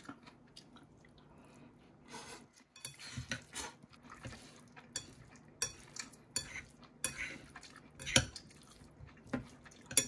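A metal spoon and chopsticks stirring and scraping through rice and ground pork in a glass bowl, with irregular clinks against the glass. It is quiet for about the first two seconds, and the sharpest clinks come a little after eight seconds in and again near the end.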